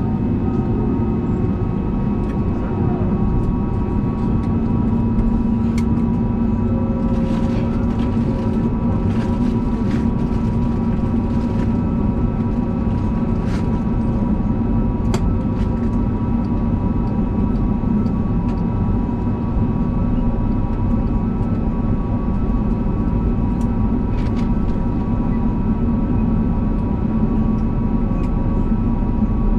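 Inside the cabin of an Airbus A320neo on the ground before takeoff, its Pratt & Whitney PW1100G geared turbofans at low power: a steady rumble with several steady engine tones. A few light knocks and rattles come and go, most of them in the first half.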